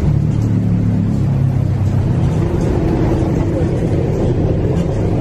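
Busy street-market ambience: a steady low engine hum with background voices.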